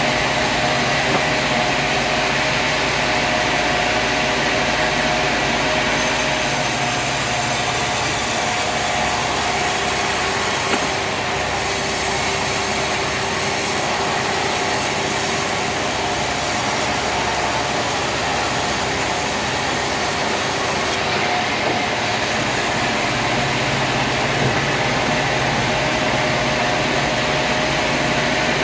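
Sawmill machinery running steadily, with a steady hum and a few held tones; a higher hiss joins about six seconds in and stops about fifteen seconds later.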